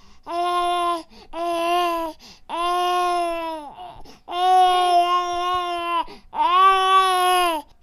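A baby crying in a run of five wails, each one to one and a half seconds long, with short breaks for breath between them. Each wail holds a steady pitch and drops slightly at its end.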